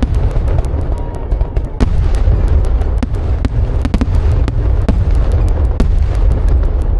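Fireworks display: a continuous low rumble of bursting shells overlaid with many sharp crackles and pops, several a second.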